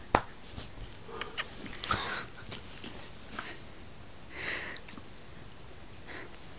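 Groenendael dog sniffing close to the microphone: a few short, hissy sniffs spread through, after two sharp clicks at the start.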